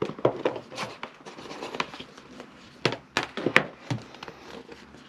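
Cardboard box handled and its lid lifted open: rustling and scraping with a run of short sharp taps and knocks, loudest about three seconds in.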